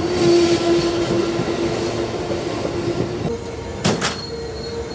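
Amtrak Silver Meteor passenger cars rolling past close by as the train pulls into the station, with a steady single-pitched squeal that steps up in pitch a little after three seconds. One sharp knock sounds just before four seconds in.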